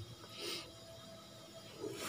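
Faint, soft brushing of a small cup of cornflour being tipped and handled over a steel bowl, a brief swell about half a second in.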